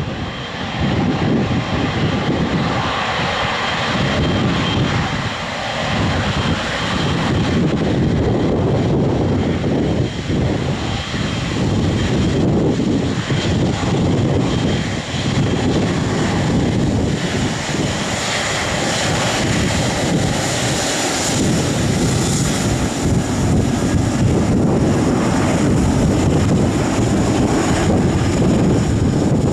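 Airliner engines running loud and steady, a rushing rumble with a thin high whine, mixed with wind buffeting the microphone.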